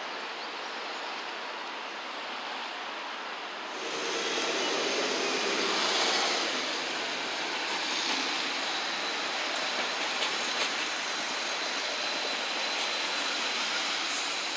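A steady hiss for the first few seconds, then, about four seconds in, a low-floor tram running past at close range: a loud rush of wheels on the rails with a steady high whine over it.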